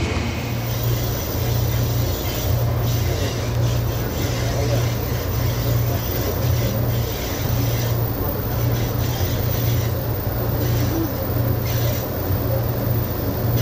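Amtrak Southwest Chief passenger train under way, heard from on board: a steady low rumble of the car running over the rails.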